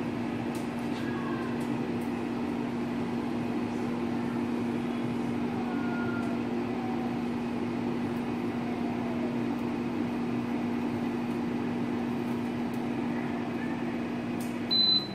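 NuWave air fryer running, its fan and heater giving a steady, even hum. Near the end the hum stops and a high beep sounds as the cooking cycle finishes.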